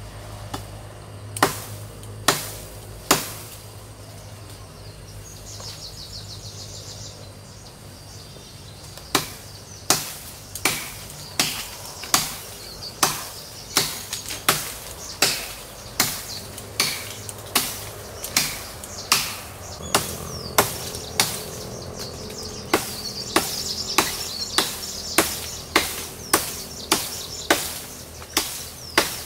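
Machete hacking into a branch of an old lychee tree, sharp blows on wood. Three blows near the start, then after a pause a steady run of blows a little over one a second, with birds chirping behind.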